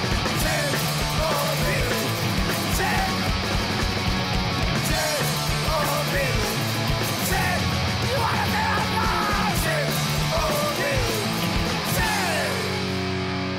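Garage rock music with a steady, driving drum beat and gliding melodic lines. About twelve seconds in the drums stop and a held chord rings on.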